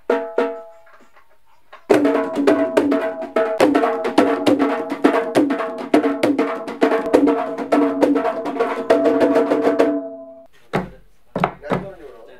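Dhol, the two-headed barrel drum, played in a recording studio. After a couple of opening strikes and a short pause, a fast, dense run of strikes rings at a few steady pitches and stops about ten seconds in. A few separate deep hits follow near the end.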